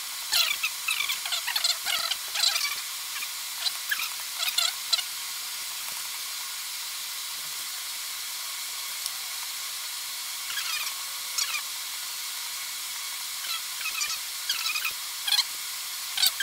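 Sped-up voices chattering in short, high-pitched squeaky bursts over a steady hiss, with a quieter stretch in the middle.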